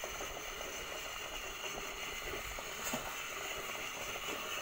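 Hot oil sizzling and crackling steadily around a Mangalore bun deep-frying in a kadai, with one sharper pop about three seconds in.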